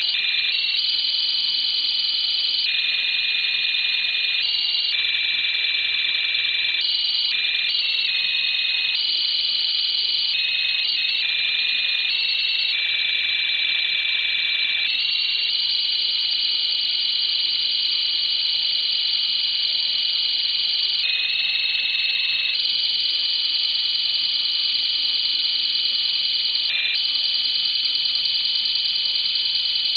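Shortwave radio signal received through a WebSDR on 13565.0 kHz: a cluster of high steady electronic tones over receiver hiss, the tones jumping between a few set pitch patterns every second or so, like a digital data transmission.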